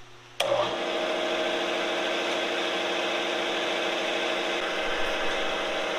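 Vertical milling machine's spindle motor switched on with a sharp click about half a second in, then running steadily with a 2-inch indexable carbide end mill spinning.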